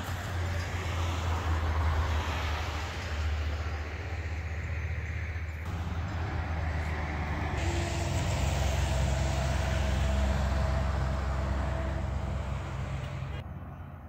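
A vehicle running, a steady low engine drone under road and wind noise, with the mix changing abruptly a few times.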